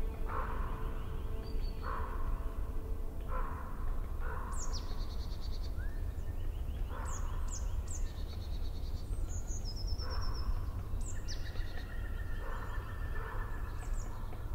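Birds calling: one call repeats every second or two, and higher chirps and quick trills join from about four seconds in, all over a steady low rumble.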